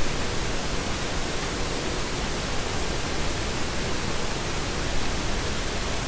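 Steady, even hiss throughout, with no distinct events.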